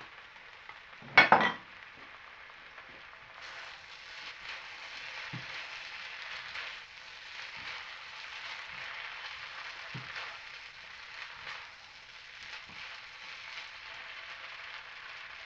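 Chicken fried rice sizzling in a pan as it is stirred, the frying hiss growing louder about three and a half seconds in, with a few faint knocks. A short loud burst about a second in stands out above the rest.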